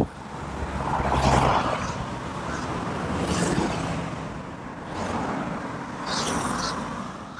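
Road traffic: several vehicles passing one after another, engine and tyre noise swelling and fading, the loudest pass about a second in.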